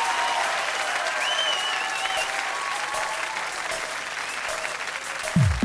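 Studio audience applauding and cheering, with whistles in the first couple of seconds. Near the end a deep electronic kick drum hits once, its pitch dropping sharply, as the song's beat comes in.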